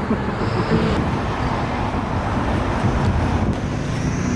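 Street traffic going by, with wind rumbling on the microphone.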